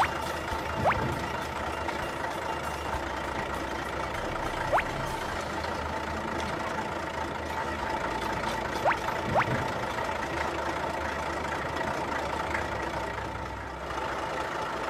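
Cartoon toy-vehicle engine sound effects running steadily under light background music. Four short rising sweeps come through: one about a second in, one near five seconds, and two close together around nine seconds.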